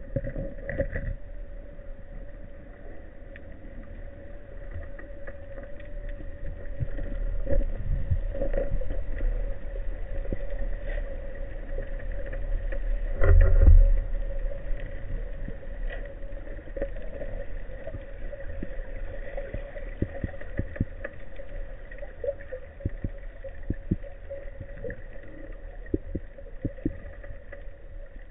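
Underwater sound picked up through a camera's waterproof housing: a low rumble of water surge in a heavy swell, with scattered clicks and knocks and a faint steady hum. One heavier thump comes about halfway through.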